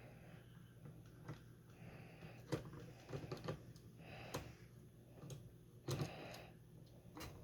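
Faint, irregular small clicks and light knocks of a crossbow scope and its Weaver-style mounts being handled and fitted onto the crossbow, with soft handling noise between.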